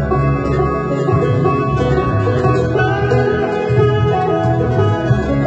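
Banjo picked steadily in a bluegrass-country style over a fuller band sound with a bass line underneath, in an instrumental stretch of the song without singing.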